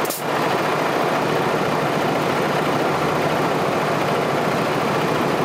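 PACCAR MX-13 inline-six diesel truck engine idling steadily, running on its own after its fuel system has been primed and it has been cranked to start.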